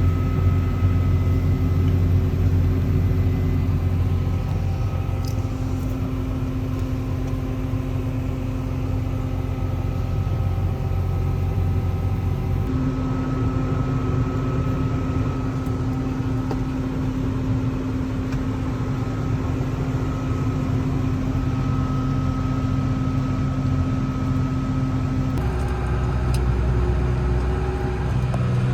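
Large farm harvest machinery running steadily: a constant low engine drone with a few steady higher tones. The pitch mix shifts abruptly a few times.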